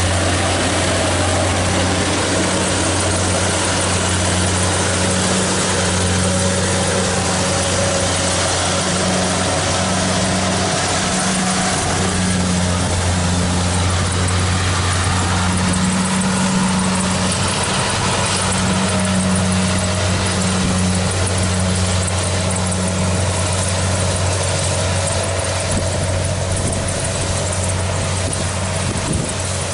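Kubota DC70 Plus combine harvester running steadily, a constant low engine hum under a dense mechanical clatter and rush from the working machine.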